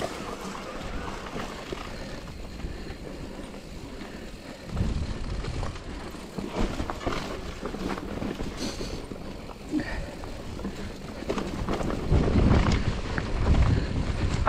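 Electric mountain bike rolling along a dry dirt singletrack: tyre noise on the trail with scattered rattles from the bike over bumps. Wind rumbles on the camera microphone, heavier about five seconds in and again near the end.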